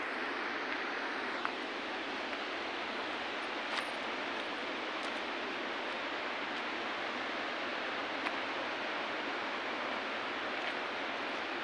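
Mountain river rushing over rocks below: a steady, even hiss of water, broken by a few light clicks.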